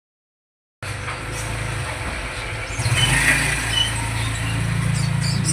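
An engine running with a steady low hum that starts abruptly just under a second in, with a few short high chirps over it.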